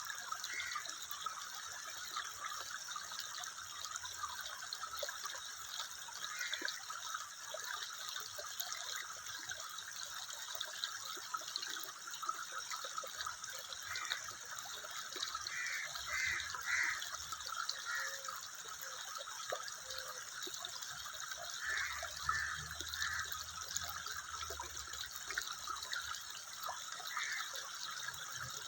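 Water running steadily, a continuous trickling and splashing, with a few brief brighter gurgles scattered through it.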